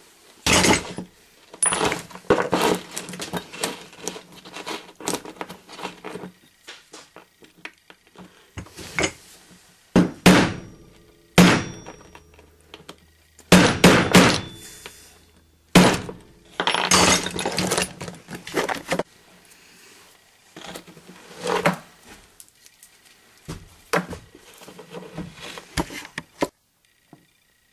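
Irregular clunks, knocks and clatter of hard parts and tools being handled and set down during assembly work on a chain-driven motor mount, with several louder knocks and busy stretches between short pauses.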